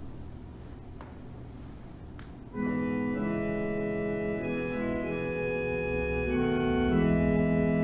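Organ starts playing about two and a half seconds in, sustained chords that change every second or so. Before it comes only a low room hum with two faint clicks.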